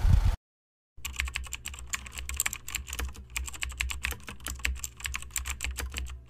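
Computer keyboard keys clicking in rapid, irregular typing over a low steady hum. Before it, a short loud low rumble cuts off abruptly, followed by a moment of silence.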